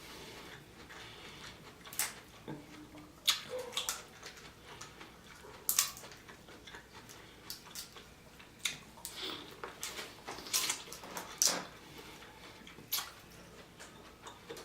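Wet, smacking eating sounds from a saucy seafood boil being eaten: about a dozen brief, irregular smacks and clicks of chewing and sucking at the food.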